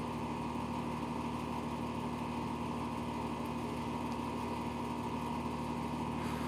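A machine running steadily: an even drone with a few held tones that does not change.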